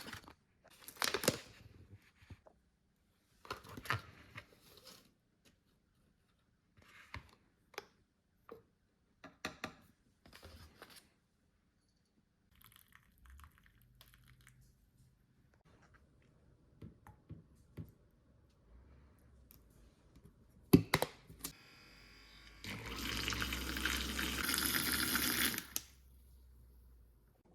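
Scattered taps, clicks and rustles of handling a mug and coffee packaging, with one sharp click, then about three seconds of liquid being poured near the end.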